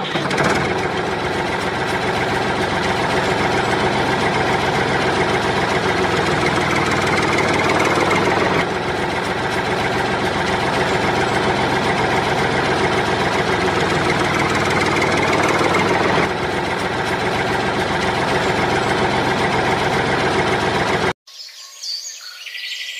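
Tractor engine running steadily, with small jumps in the sound about 9 and 16 seconds in. It cuts off suddenly near the end, leaving faint bird chirps.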